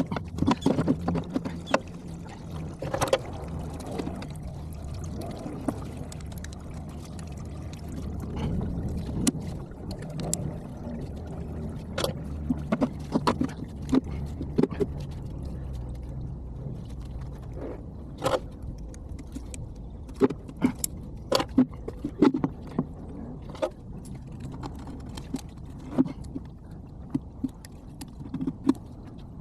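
A small tractor engine running steadily, with frequent sharp metallic clinks and knocks of tools and parts being handled over it, sped up fourfold.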